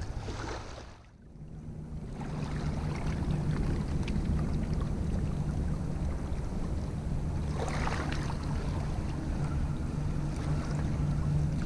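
Steady low engine drone over an even hiss of wind and water.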